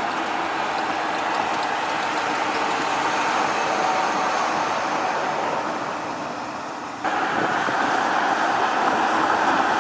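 Mercedes-Benz GenH2 fuel cell truck driving: a steady rush of road and wind noise with no diesel engine note. About seven seconds in, the sound jumps abruptly louder.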